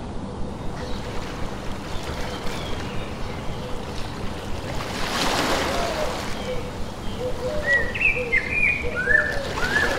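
Birds chirping, short repeated calls over the second half, above a steady background hiss with a brief swell of rushing noise around the middle.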